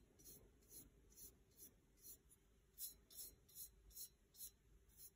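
Faint, quick swishes of a bristle paintbrush stroked back and forth over an ink-coated tumbler, about two to three strokes a second.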